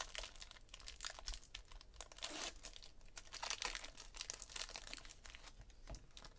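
Foil wrapper of a Topps High Tek baseball card pack being torn open and crinkled by hand: a dense, irregular crackling and rustling of foil.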